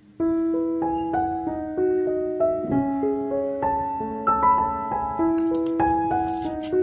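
Background piano music, a slow melody of single notes. Near the end, faint short scraping sounds, fitting a knife scraping the skin off a piece of ginger.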